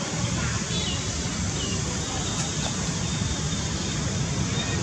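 Steady outdoor background noise with a low rumble, and a few faint, short, high bird chirps over it about a second in.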